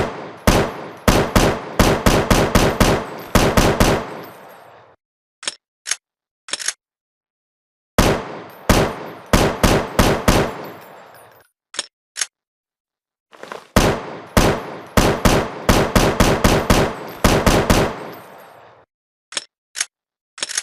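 AR-7 assault rifle sound effect: three long bursts of rapid automatic fire, about five shots a second, each burst ringing out as it stops. Between the bursts come short, sharp single clicks, two or three at a time.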